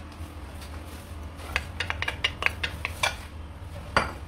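Diced onion tipped from a ceramic plate into a stainless steel pan: a quick run of clinks and taps as the plate is knocked against the pan, then a single louder knock near the end.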